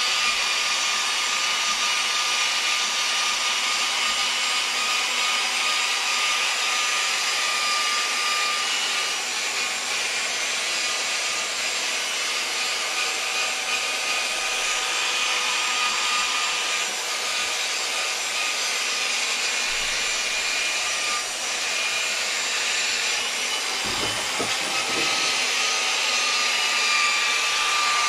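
Electric polisher running steadily with a constant high motor whine, its foam pad buffing the clear coat on a guitar headstock. A few dull bumps come near the end.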